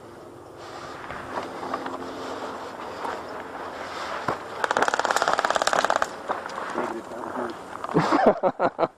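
Airsoft rifle firing one rapid full-auto burst of evenly spaced shots, lasting about a second and a half, near the middle. Faint voices call out near the end.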